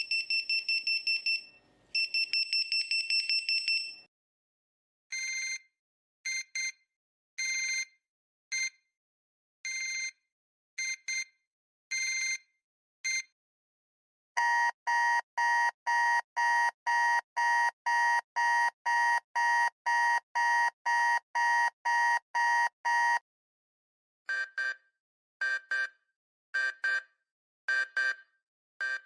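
A run of electronic alarm-clock beeps in several patterns. First comes fast, high beeping that stops about four seconds in. Then single beeps come about once a second, then about eight seconds of steadier pulsed beeping at roughly two a second, and single beeps about once a second near the end.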